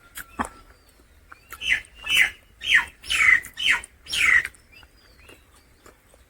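An animal calling: a run of about six short, harsh calls, each falling in pitch, one after another over about three seconds.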